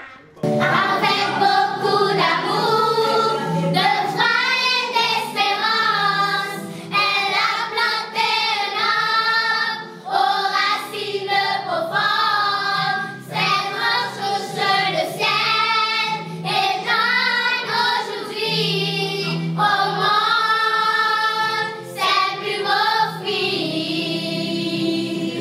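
A group of young girls singing a song together as a children's choir, phrase after phrase.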